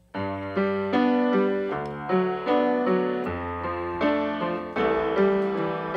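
Background music: a piano playing a melody over chords, with a new note struck every half second or so.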